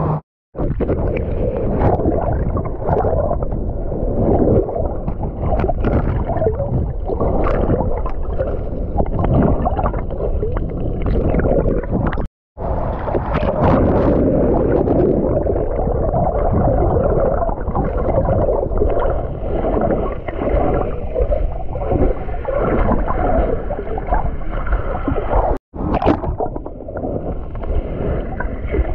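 Muffled, churning rush of sea water and surf heard through a camera held underwater in shallow waves. It is loud and dull, and drops out abruptly for a moment three times.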